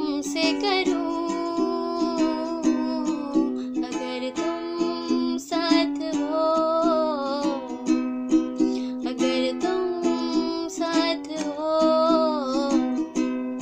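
Ukulele strummed in a steady rhythm of chords, with a woman's voice carrying the melody over it, strongest in the middle and near the end.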